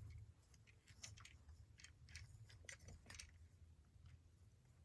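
Near silence with a steady low hum, broken by scattered faint clicks of plastic parts as a transforming action figure is handled and posed.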